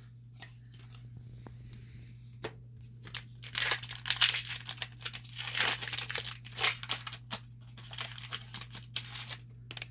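Foil trading card pack being torn open and crinkled. The crackling and rustling starts about three and a half seconds in and goes on in quick irregular bursts until near the end.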